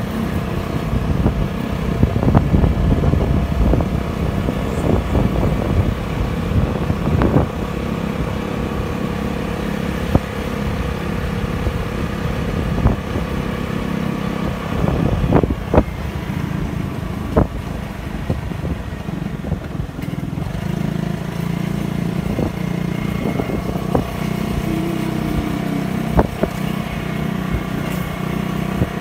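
Motorcycle engine running steadily while the bike is ridden, with a low rumble underneath and a few sharp knocks here and there.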